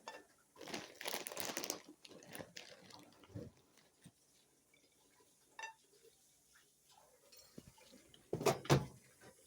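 Dishes and utensils clattering and clicking as kitchen things are handled. Near the end come two heavier bangs, the microwave door being shut hard.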